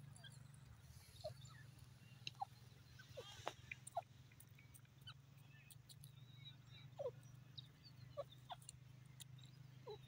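Grey francolin giving short, soft chirping calls, about eight scattered through, with a few faint clicks, over a faint low steady hum.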